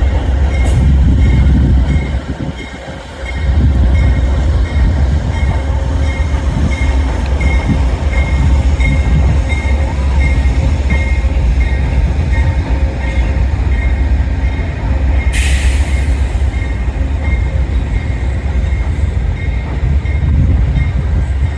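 Amtrak passenger train passing over a steel truss bridge: a steady, heavy low rumble from the locomotive and then the cars rolling across, easing briefly about two seconds in. A faint high tone pulses about twice a second throughout, and a short hiss sounds about fifteen seconds in.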